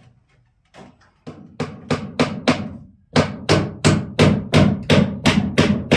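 A rhythmic series of sharp percussive strikes over a steady low tone. It starts about a second in and settles into an even beat of about three strikes a second from about halfway.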